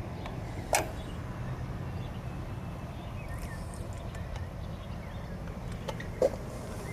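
Air-cooled 1600 cc dual-port VW flat-four idling steadily, with two sharp clicks, one about a second in and one near the end.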